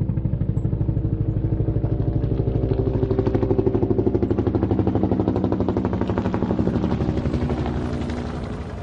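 A big engine idling with a rapid, even, pulsing beat that fades out near the end.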